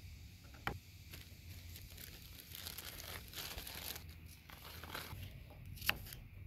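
Plastic zip-top bags crinkling in the middle as crackers are put in, with a sharp knock of a knife against a plastic cutting board near the start and another near the end as food is sliced.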